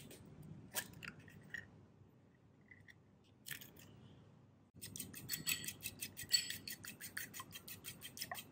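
A few separate clicks, then a fork beating an egg in a small ceramic bowl: quick, even clinks of the tines against the bowl, about six a second, starting about five seconds in.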